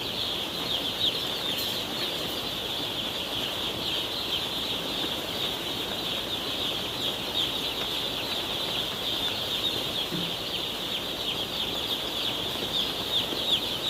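A large flock of day-old chicks peeping nonstop, many high, short, falling cheeps overlapping into a dense chorus.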